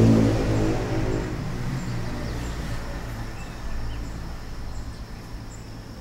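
Background ambience: a steady engine-like drone that fades away over the first couple of seconds, leaving a low hum, with a few faint bird chirps.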